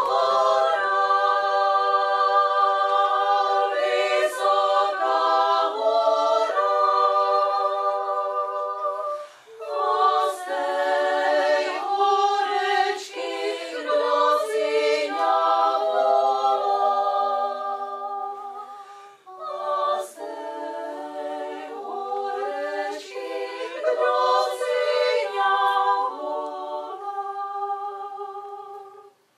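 Small women's vocal ensemble singing in several parts, with brief breaks between phrases about 9 and 19 seconds in, and the song ending near the close.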